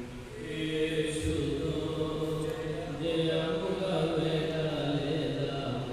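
Slow liturgical chanting with long held notes.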